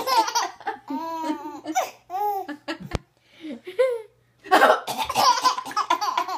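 A baby laughing in short, high-pitched bursts with pauses between, set off by a woman's coughing; near the end coughs and laughter come thick together.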